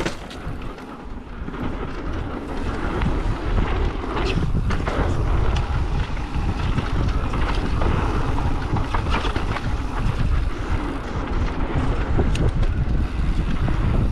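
Wind buffeting the microphone of a mountain biker's camera as the bike picks up speed down a dirt trail. The rush grows louder over the first few seconds and then holds, with scattered sharp clicks and rattles from the bike.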